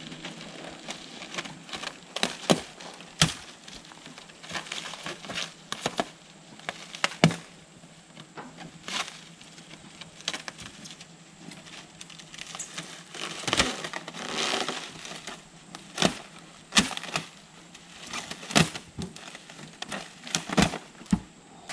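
Plastic shrink wrap on a stack of foam insulation boards being cut and ripped off by hand: irregular sharp crackles and snaps, with a longer crinkling tear a little past halfway.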